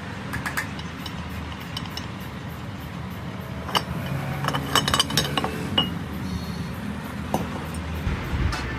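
Sharp metal clinks and taps of a camshaft being turned and slid out of a Suzuki three-cylinder cylinder head, thickest about four to five seconds in; the camshaft sits loose in its bores in the head.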